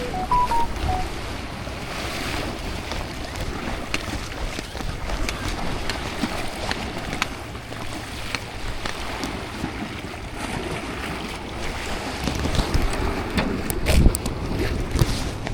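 Wind buffeting the microphone over the steady wash of sea waves, with a louder gust or surge near the end.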